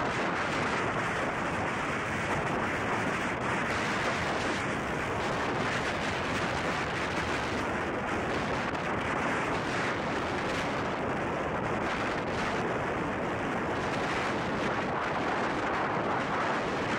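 Wind buffeting the microphone aboard a boat at sea: a steady rushing noise with no pauses.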